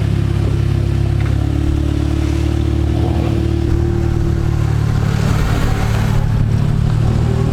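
A car engine running steadily at low revs: an even low drone, with a fainter higher hum joining for a few seconds in the middle.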